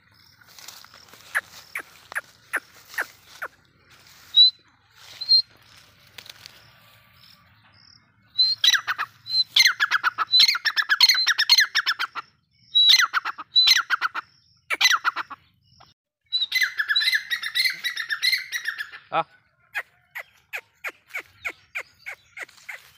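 Grey francolin calling: three bouts of rapidly repeated, high-pitched notes, starting about eight, thirteen and sixteen seconds in, with scattered short sharp clicks in between.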